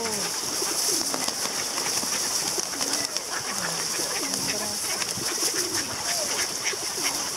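A dense flock of feral pigeons and mallard ducks jostling for food: wings flapping and fluttering, with scattered bird calls over a steady high hiss.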